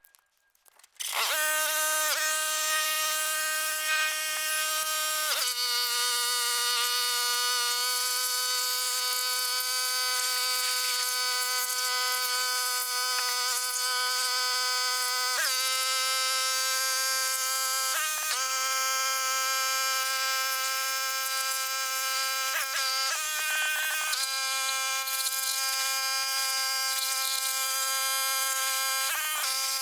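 Sped-up time-lapse sound of power-tool work: a steady high-pitched buzz whose pitch jumps up or down abruptly every few seconds, at each cut.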